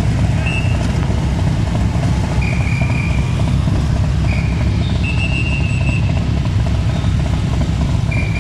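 Several motorcycles idling together in a steady low rumble. Short high-pitched tones sound about five times over it, each lasting under a second.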